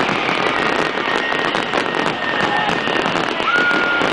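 Fireworks going off without a break: a dense run of bangs and crackles, with two long, steady high whistles over it.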